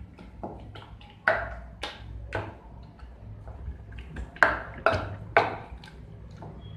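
A handheld masher knocking against the bottom of a stainless steel bowl while crushing roasted tomatoes. The knocks come irregularly, roughly twice a second, each with a short metallic ring, and the hardest strikes fall around four to five and a half seconds in.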